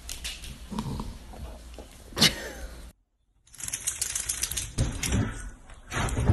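Scuffling and clicking handling noise with one sharp click a little over two seconds in. After a short break, bedding rustles with a few soft thumps.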